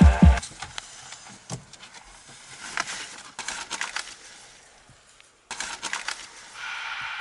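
Two heavy low thumps right at the start, then scattered rustling and crinkling as a paper comic magazine is handled.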